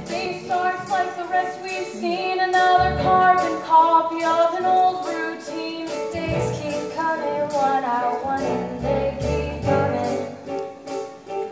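Female voices singing a stage-musical song over a small live band, with a steady beat running under the melody.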